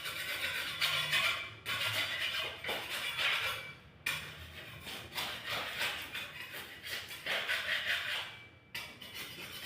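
Repeated scraping strokes against a wall surface during wall paint repair, each stretch of scratchy rasping lasting a second or two with short pauses between.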